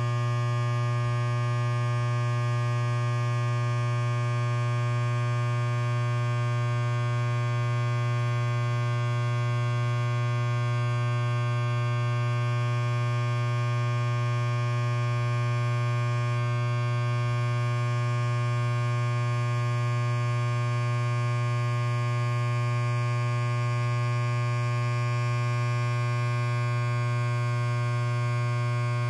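Electric hair clipper running with a steady, even buzz. The pitch is low, with many bright overtones above it.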